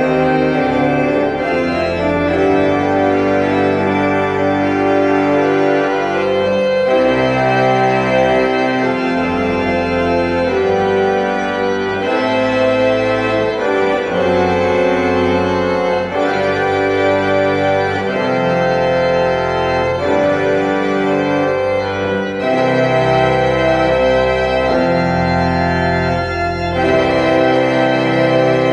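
Church pipe organ playing a hymn in full, sustained chords over a moving bass line.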